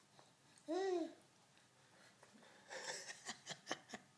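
Baby vocalizing: one short squeal that rises and falls in pitch about a second in, then a quick run of breathy laughter near the end.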